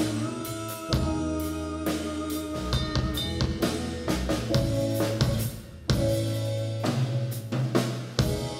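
Live band playing without vocals: drum kit with bass drum and snare hits, electric bass notes held underneath, and keyboard chords.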